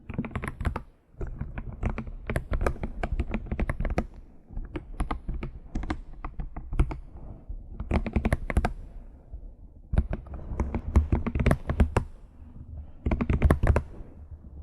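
Fast typing on a computer keyboard: rapid key clicks in runs of a few seconds, broken by brief pauses, the first about a second in.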